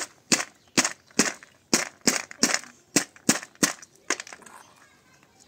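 A quick series of sharp knocks or cracks, about two to three a second, stopping about four seconds in.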